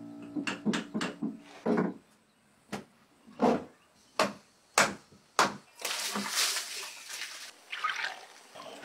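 About ten sharp knocks of wood against stone as the wooden handle is worked into its socket in the upper millstone of a hand-made stone quern, followed by a wet, splashy pour from about six seconds in as soaked beans are ladled onto the stone for grinding.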